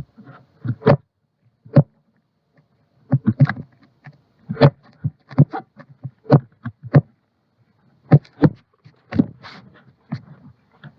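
Irregular clicks and taps, a dozen or so spread over several seconds, with a pause about two to three seconds in.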